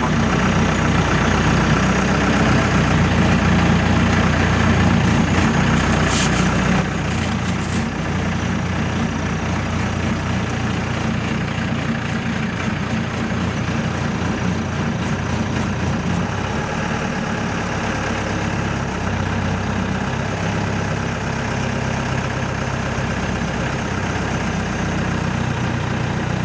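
Safari jeep's engine running steadily at low revs, a little quieter after about seven seconds.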